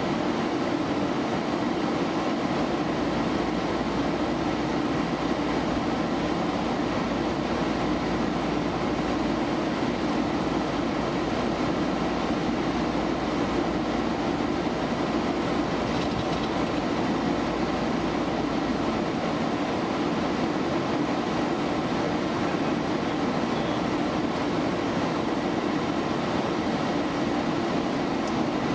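Steady flight-deck noise of a Boeing 737 in flight: an even rush of airflow, engines and air conditioning heard inside the cockpit, with a hum in the low-middle range and no changes.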